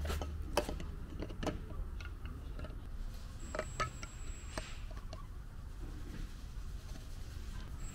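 Scattered light clicks and taps of plastic on plastic as a clear-lens turn signal housing is handled and pressed into a painted plastic Jeep Wrangler JK grill.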